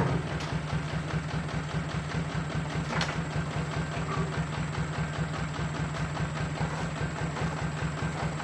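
Diesel dump truck engine idling steadily with a fast, even pulsing, with a sharp knock right at the start and another about three seconds in.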